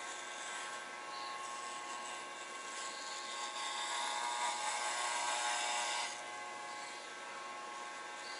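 Electric hair clippers buzzing steadily, getting louder and rougher for a few seconds in the middle, during a self-haircut.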